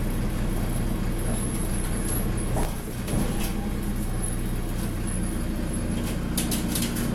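Ikarus 405 city bus's engine running, heard from inside the passenger cabin as a steady low drone that dips briefly about three seconds in. A few sharp clicks come near the end.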